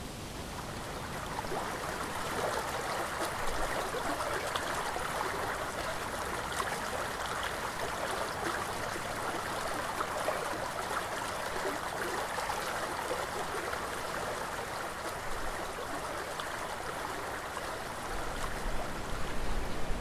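Shallow river running over a stony cobbled bed: a steady babbling rush of water that comes up about a second in. A low rumble creeps in near the end.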